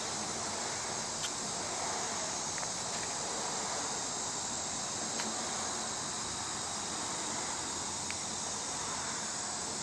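Steady high-pitched chorus of insects, with a few faint sharp clicks of small hand-tool work about a second, five seconds and eight seconds in.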